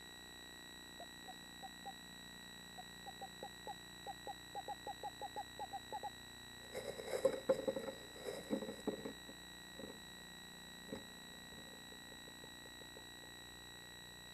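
Screech owl calling inside a nest box during courtship: a series of short, same-pitched hoots that come faster and faster. Then, about seven seconds in, a louder two-second jumble of scuffling as the owls move against each other, and a few fainter notes after it.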